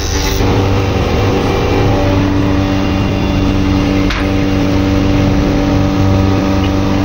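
Stationary woodworking machine running, a steady motor hum and whir, with a single short click about four seconds in.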